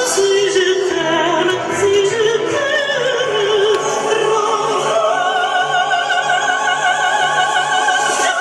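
Music: a singer holding long notes with heavy vibrato over instrumental accompaniment, the longest note held near the end.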